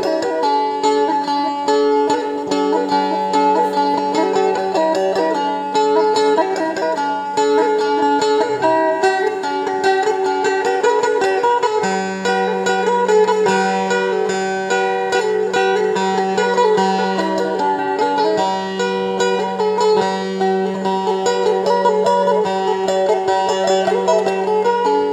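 Dayak sape (plucked boat lute) music: a repeating plucked melody over a steady low drone.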